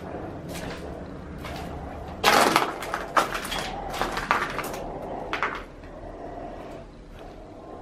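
A series of knocks and clatters, as of objects or doors being handled, loudest a little over two seconds in.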